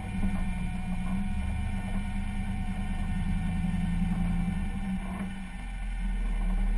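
Off-road vehicle's engine running at low speed as it crawls over rocks, a steady low drone that eases briefly near the end.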